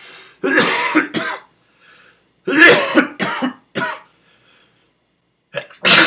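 A man clearing his throat in two throaty, hacking bursts, then sneezing once sharply and loudly near the end.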